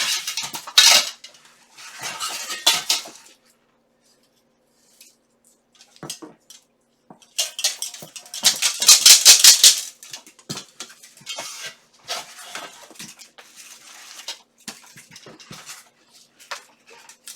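Steel armour plates clinking and clattering against each other in bursts as pieces are handled and sorted, with the loudest clatter about halfway through.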